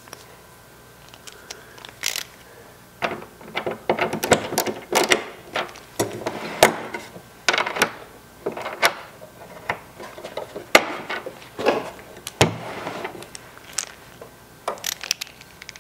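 Hand screwdriver and small metal parts being worked as a lock arm is screwed onto a door handle's lock cylinder: irregular clicks, scrapes and knocks, the loudest sharp clicks near the middle and about three-quarters through.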